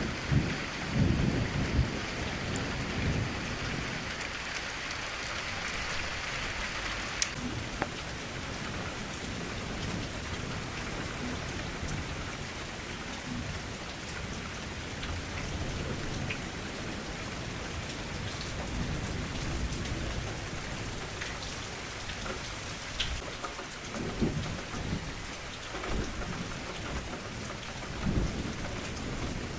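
Steady rain falling, with low rumbles of thunder near the start and twice more near the end.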